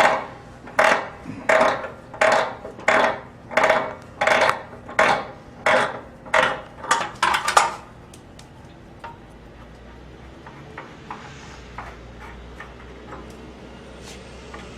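Hand saw cutting through PVC pipe: about a dozen even back-and-forth strokes, a little quicker near the end, stopping about eight seconds in. Then only a few faint clicks of handling.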